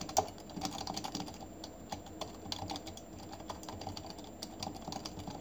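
Typing on a computer keyboard: a quiet run of quick, uneven key clicks.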